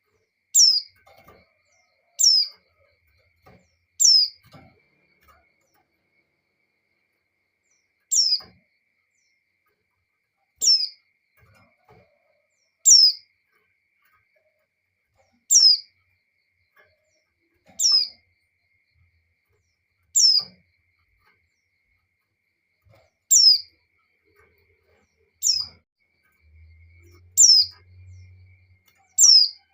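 Female white-eye (pleci) giving its mating call to lure a male. It is one short, high whistle that drops sharply in pitch, repeated about a dozen times, roughly every two to three seconds.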